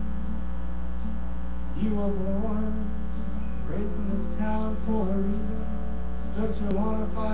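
Live music: chant-like singing with long held notes that slide slowly between pitches, over a steady low electrical hum.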